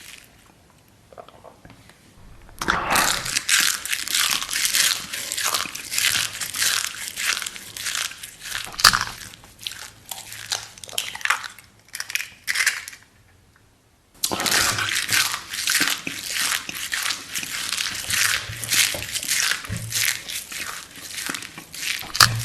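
Close-miked eating sounds: dense crunching and crackling bites and chewing, in two long spells with a short quiet pause between them.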